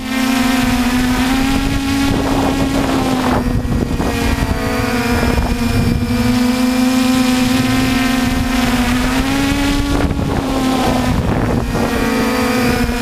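Multirotor drone's electric motors and propellers humming steadily as it hovers and turns, the pitch rising and falling slightly a few times, with wind buffeting the onboard microphone.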